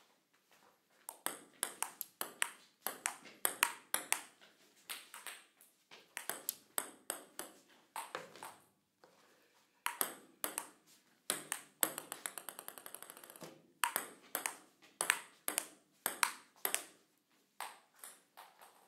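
Table tennis ball clicking sharply as it is hit by a paddle and bounces on the table, in an uneven rally-like run of hits. About twelve seconds in comes a quick run of rapid, quieter bounces, as a ball settles on the table.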